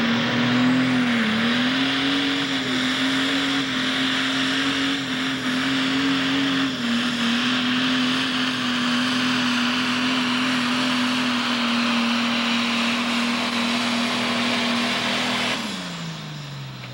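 Pro Stock pulling tractor's turbocharged diesel engine running flat out at a steady high pitch while dragging the weight-transfer sled, with a loud rush of exhaust and turbo noise. Near the end the engine pitch falls away as the throttle comes off at the end of the pull.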